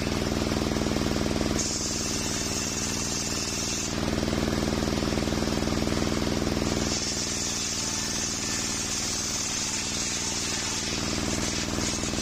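Belt-driven circular saw bench running steadily, its large blade ripping coconut wood into beams. A harsh cutting hiss joins the steady drive hum from about 1.5 to 4 seconds in, and again from about 7 seconds in onward, as a plank goes through the blade.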